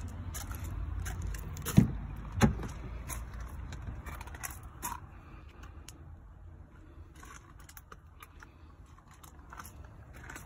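Driver's door of a Land Rover Discovery being opened: two sharp thumps about two seconds in, followed by light clicks and rustles of handling.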